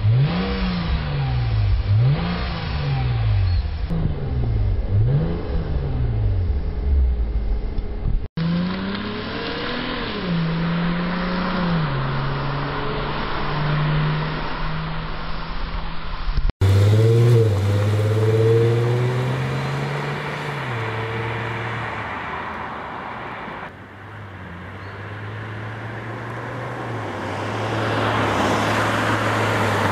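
Toyota Mark X (120 series) V6 through an M'sRealize silent aftermarket muffler. It is first revved in quick repeated blips with the car at rest, about four rises and falls of engine speed. Then it is heard from the roadside pulling through the gears and driving past, the note easing off before road noise builds near the end.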